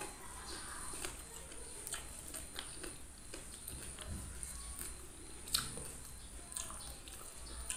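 Close-up mouth sounds of chewing and lip-smacking while eating fish head and rice by hand, with scattered small clicks and one sharper click a little past halfway.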